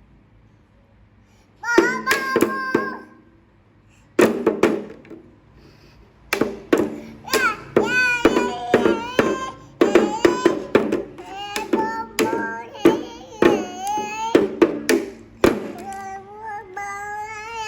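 A small child singing in a high voice while beating a drum, with sharp irregular knocks among the sung phrases.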